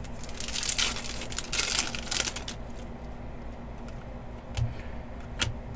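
Trading cards rustling and sliding as they are handled, in short bursts about half a second and two seconds in, with a light click near the end, over a low steady hum.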